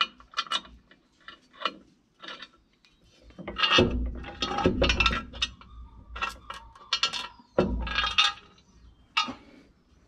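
Hand ratchet wrench clicking in short irregular runs, with metal clinks of bolts, as the bolts holding a cutting disc (turtle head) on a disc mower's cutterbar are undone. The louder runs come about four to five seconds in and again near eight seconds.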